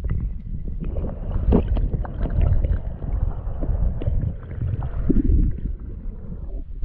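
Stream current heard through a submerged camera housing: a loud, muffled low rumble with scattered knocks and clicks.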